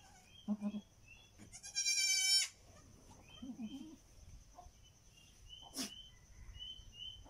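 A newborn goat kid bleats once, a loud high-pitched call about a second long, starting about one and a half seconds in. Small bird chirps repeat in the background, and there is a single sharp click later on.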